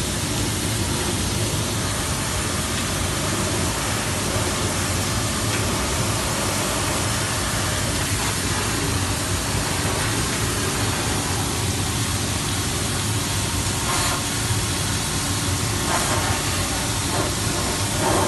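A pressure washer's water jet spraying the underside of a car with a steady hiss, over the machine's low, steady hum.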